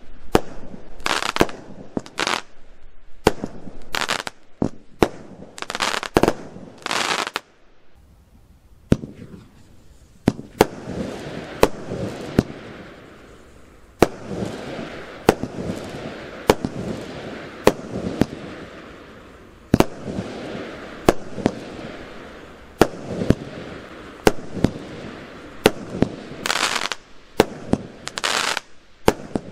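Consumer firework battery (cake) firing shot after shot: sharp bangs of shells bursting, with short hissing launches. There is a brief lull about eight seconds in, then a long stretch of dense crackling between the bangs.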